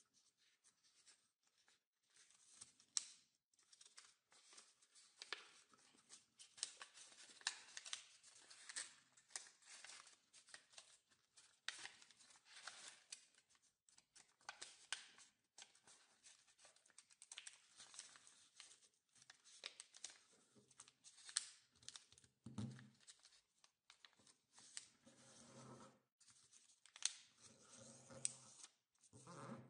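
Quiet folding and creasing of a sheet of origami paper by hand: short, dry crinkling and scraping strokes as the fingers shape and press the folds flat. A few duller bumps of the hands on the wooden table come about three quarters of the way through.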